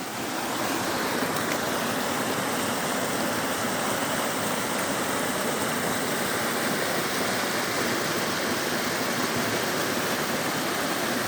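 Waterfall: water pouring and splashing in a steady rush, swelling during the first second and then holding constant.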